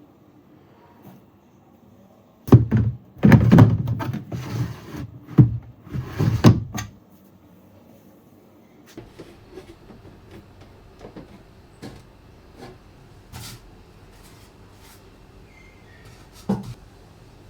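Household handling noises: a cluster of loud knocks and bumps lasting about four seconds, then faint scattered taps and one more knock near the end.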